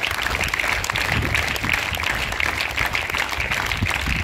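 A group of schoolchildren clapping, a steady round of applause.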